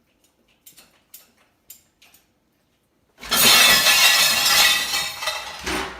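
A few light clicks, then about three seconds in a sudden loud crash with shattering that lasts a couple of seconds and dies away.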